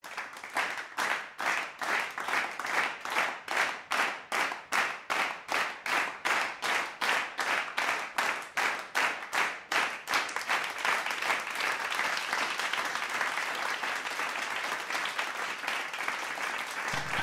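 A crowd clapping in unison, about two and a half claps a second, that breaks into continuous applause about ten seconds in.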